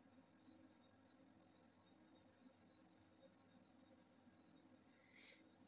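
Faint, steady, high-pitched insect trill made of rapid even pulses, heard over quiet room tone. A brief faint swish comes near the end.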